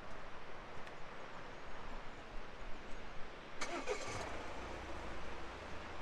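A Volvo estate car driving slowly past on a narrow lane. About three and a half seconds in there is a short sharp sound, followed by a steady low engine hum.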